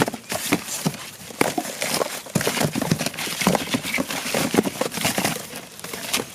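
Rapid, irregular knocking and tapping as cardboard firework tubes are handled and stacked by hand, with some paper crackle between the knocks.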